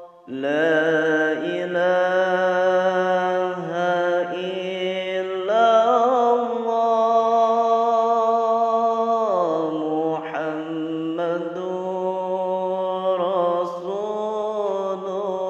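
A man singing an Arabic Islamic devotional chant solo in long held notes that bend and waver, after a short pause for breath at the start.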